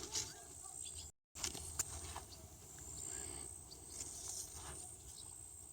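Quiet outdoor ambience: a steady high-pitched thin tone with scattered clicks and short rustles. The sound drops out completely for a moment about a second in.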